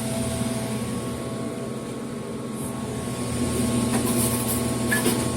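Steady machinery hum carrying several constant tones, with a few light clicks and rattles toward the end.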